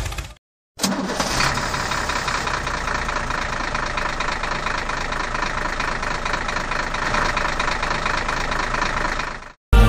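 Tractor engine running steadily with an even knock. It cuts out briefly and restarts within the first second, then stops suddenly near the end.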